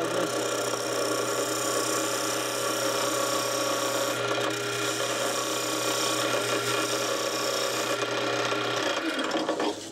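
Wood lathe motor running with a steady hum while a parting tool cuts into a spinning wooden model wheel, a continuous scraping of wood. The motor hum stops near the end as the lathe is switched off.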